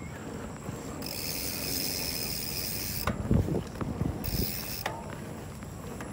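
Mountain bike rear freehub buzzing while coasting, starting and stopping twice as the rider stops and resumes pedalling. Underneath are steady rumble from tyres and wind, and a few low thumps as the bike rolls over bumps on the dirt trail.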